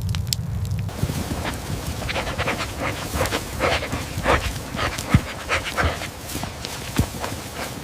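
A dog panting in quick, repeated breaths. There is a sharp knock about five seconds in and another near the end.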